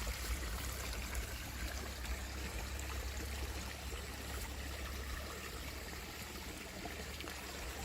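Water from a garden hose trickling and splashing steadily down a small concrete fake-rock waterfall, with a steady low rumble underneath.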